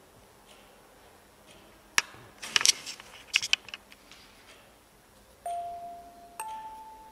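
A few sharp clicks and knocks, then two ringing bell-like chime tones: a lower one, followed about a second later by a higher one that rings on.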